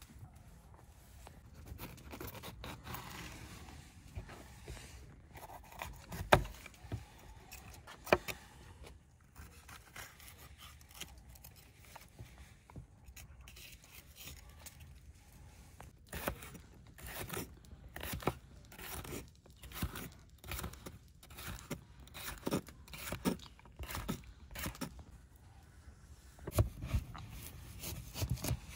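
Kitchen handling noise: scattered knocks, clicks and scraping of utensils and cookware. Two sharp knocks come about six and eight seconds in, then a busier run of taps and clicks through the second half.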